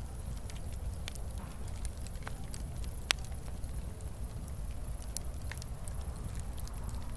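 Fireplace fire crackling: scattered sharp pops and snaps over a low, steady rumble of burning, with one louder pop about three seconds in.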